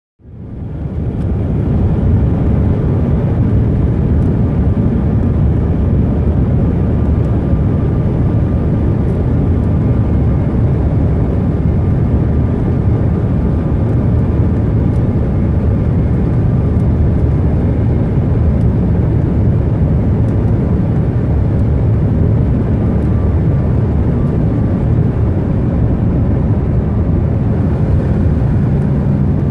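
Cabin noise inside a Bombardier CRJ-900 regional jet on final approach: a steady low rumble of airflow and its rear-mounted turbofan engines, with a faint steady whine. It fades in within the first second.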